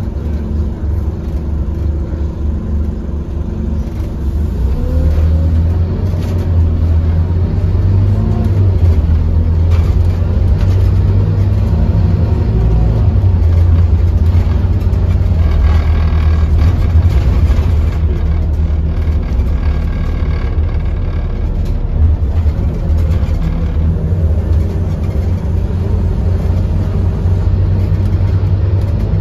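Scania OmniCity N230UD double-deck bus's diesel engine and running gear heard from inside the passenger saloon while under way. A steady low rumble with the engine note rising and falling several times as the bus accelerates and eases off.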